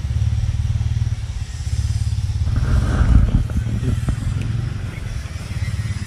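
A small engine running steadily nearby, a low, evenly pulsing drone. A brief clatter comes about three seconds in.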